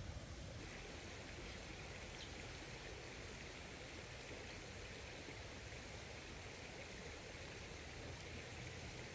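Faint, steady outdoor background hiss, with a thin high steady band of sound coming in about half a second in.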